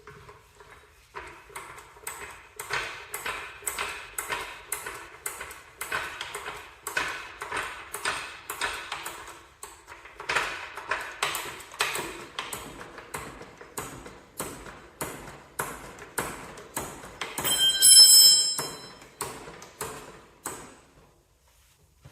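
Hand ratchet wrench clicking through a steady run of short strokes, two to three clicks a second, while tightening bolts on a Cub Cadet 782 garden tractor. A ringing metal clank cuts in about eighteen seconds in.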